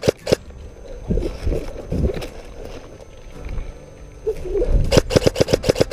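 Airsoft guns firing: a couple of quick shots at the start, then a rapid full-auto burst of about ten shots in the last second.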